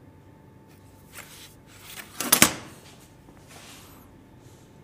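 Steel rule being slid off the pine board and set down on the wooden bench top, landing with a couple of sharp knocks a little over two seconds in. A short pencil stroke on the board follows.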